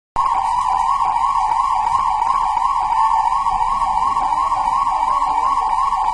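Siren sounding one loud, steady tone that wavers quickly up and down, about four times a second. It starts suddenly right at the beginning.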